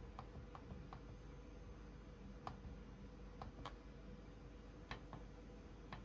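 Faint, irregular clicks of plastic buttons being pressed on a Hitachi heat pump's wall-mounted controller keypad, about eight presses spread over a few seconds.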